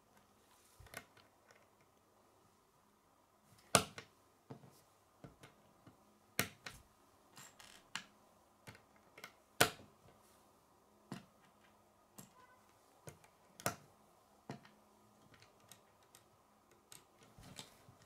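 Plastic K'nex connectors and rods clicking and snapping together, with parts knocking on a wooden tabletop: irregular sharp clicks, a handful of louder snaps among many softer ticks.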